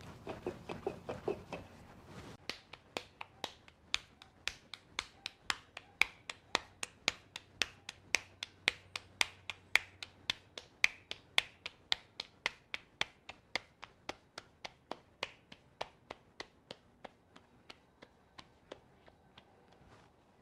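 Tortillas being patted out by hand, the dough slapped flat between the palms: a run of sharp slapping pats, about three a second, starting about two seconds in, then thinning out and stopping near the end.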